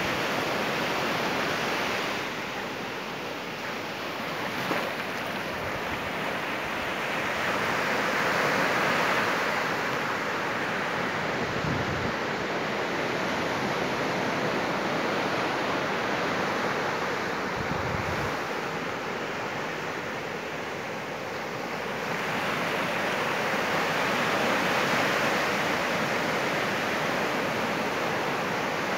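Sea surf breaking and washing up a sandy beach: a steady rush of water noise that swells and eases slowly with the incoming waves, louder twice along the way.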